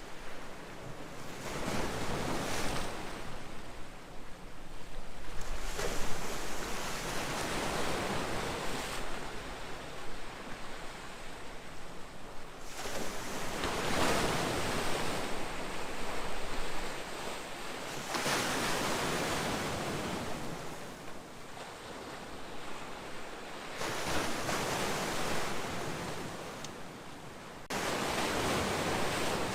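Ocean waves breaking and washing ashore, a fresh surge of surf rising and fading every four to six seconds.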